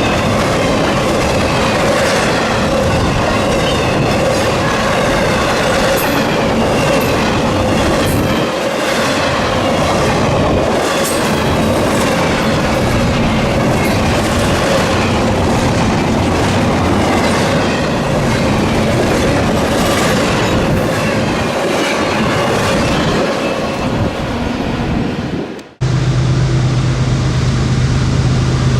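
Freight train cars rolling past: a steady rumble with repeated wheel clicks over the rail joints and a wavering metallic wheel squeal. About three seconds before the end it cuts off abruptly to a steady low hum.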